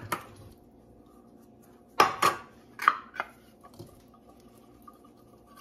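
Tin cans of chicken breast knocked and tapped against a plastic mixing bowl as the chicken is emptied out. There are a couple of sharp clanks at the start, then several more between about two and three seconds in, over a faint steady hum.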